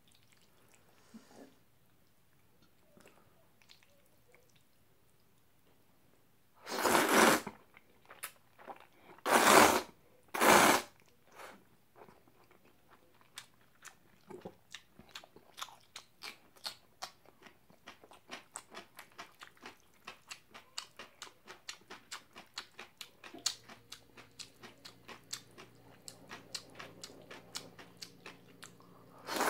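A person eating jajangmyeon (black-bean-sauce noodles): three loud slurps of noodles between about seven and eleven seconds in, then steady chewing with quick clicks, several a second, that grow busier toward the end.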